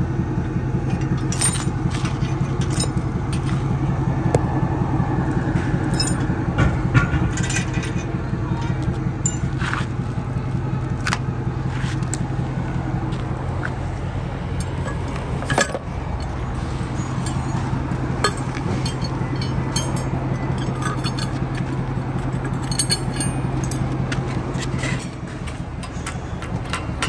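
Truck engine idling steadily, with scattered metallic clinks and clanks from the trailer hitch, chains and tools being handled. The engine hum drops away about 25 seconds in.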